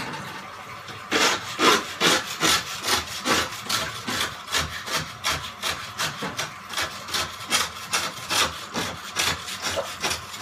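Long-handled aquarium glass scraper rasping back and forth against the inside of a reef tank's glass, scraping off a thick crust of coralline algae. The strokes start about a second in and go on at about three a second.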